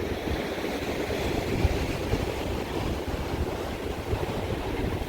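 Wind buffeting the microphone in low gusts over a steady hiss of surf washing on the shore.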